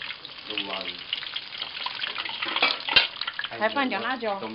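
Hot oil sizzling steadily in a pan for deep-frying ciba, with a sharp knock about three seconds in and brief voices in the background.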